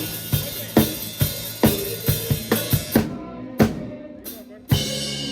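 Drum kit played in a steady groove of kick, snare and cymbals. About three seconds in the cymbals drop out for a short break of a few hits, then a loud crash brings the full kit back in near the end.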